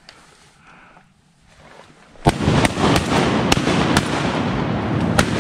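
A volley of shotgun fire from several duck hunters: a first loud shot about two seconds in, then about six more shots over the next three seconds, over a continuous rushing noise.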